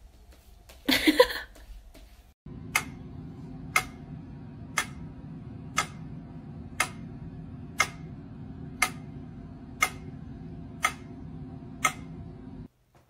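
A short, loud cry about a second in. Then a metronome ticks once a second, ten sharp clicks at an even 60 beats a minute, over a steady low hum.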